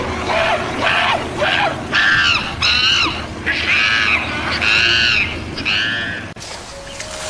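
A run of about nine short, high, squawking animal calls, each bending in pitch, over steady background music; they cut off suddenly near the end.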